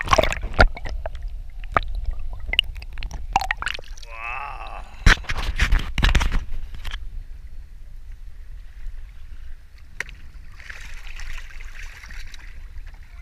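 Sea water sloshing and splashing against the side of a small boat, with knocks on the hull, as a large fish is brought to the surface and gaffed. The splashing is heaviest near the end. A gull calls once about four seconds in.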